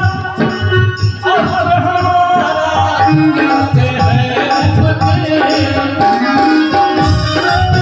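Instrumental passage of Indian folk music: a held melody over hand-drum strokes and rattling, jingling percussion, with no singing.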